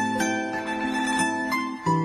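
Background music of plucked string notes, several struck in a row and left ringing.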